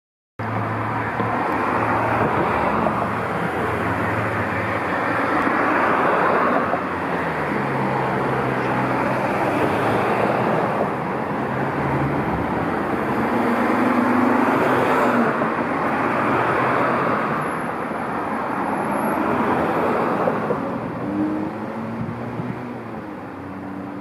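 Steady road traffic: cars passing one after another, the noise swelling and fading every few seconds, with a low engine hum underneath. It eases off a little near the end.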